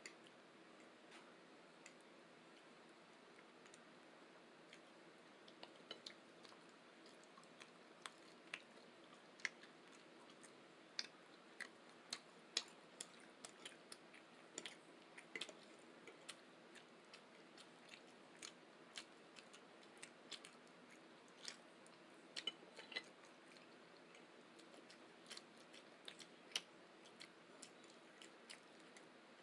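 Close-miked chewing and mouth sounds at a meal: irregular sharp clicks and smacks over a faint hiss, sparse at first and most frequent through the middle.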